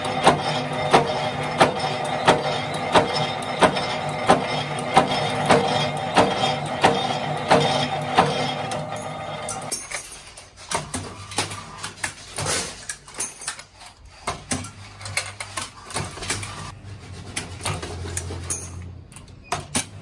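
Mechanical power press stamping key blanks from a metal strip: a steady motor hum with a sharp press stroke about every two-thirds of a second. About halfway through, this gives way to a key-cutting machine: a lower motor hum with irregular clicks and knocks as the cutter works a key blank.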